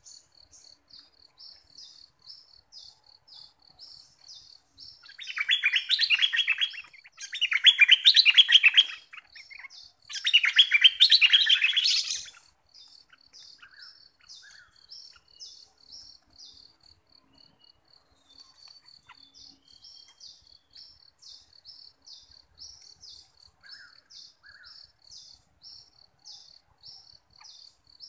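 Bulbul song: three loud, bubbly warbling phrases of one to two seconds each, about five to twelve seconds in, then a few faint short calls. A steady rapid high-pitched ticking runs underneath throughout.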